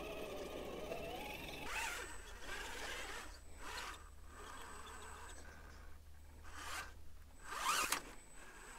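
Axial Capra RC rock crawler climbing a sandstone chute: a faint, steady whir of its electric motor and gears, with a rising whine in the first couple of seconds. Short scratchy bursts of its tires scraping over the rock come about two seconds in and again near the end.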